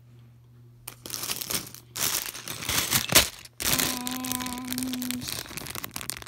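Clear plastic LEGO parts bag crinkling as it is handled, starting about a second in, with a sharp snap about three seconds in. A short steady hum is heard partway through.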